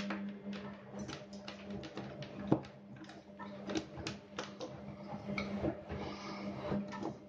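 Small plastic electronic parts handled on a table: irregular light clicks and taps, with one sharper click about two and a half seconds in, over a steady low hum.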